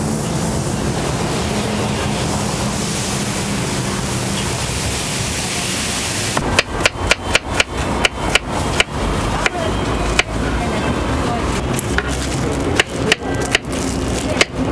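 Kitchen knife slicing banana on a cutting board: a run of sharp knocks, two or three a second, starting about six seconds in. Before that, a steady background hiss.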